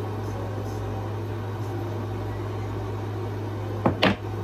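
Window air conditioner running with a steady hum. About four seconds in, two short sharp knocks.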